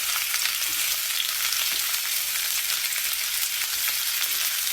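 Steady crackling hiss with many fine pops, mostly high in pitch.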